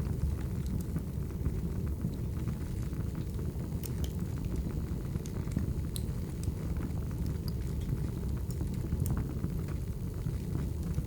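Firewood burning: a steady low rumble of the fire with scattered, irregular sharp crackles and pops from the logs.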